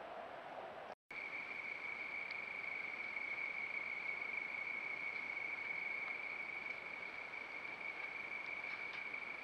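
Night insect chorus: one steady, unbroken high trill over a faint hiss. It starts after a brief dropout about a second in.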